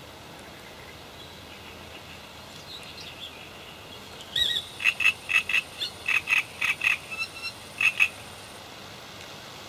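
A frog croaking in a rapid series of about fifteen short calls, about four a second, starting a little before the middle and lasting about four seconds.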